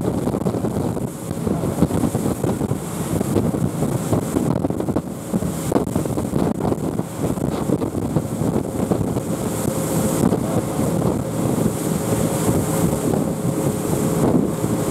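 Twin 200 hp Suzuki outboard engines of a rigid-inflatable tour boat running steadily under way, mixed with wind buffeting the microphone and water rushing past the hull.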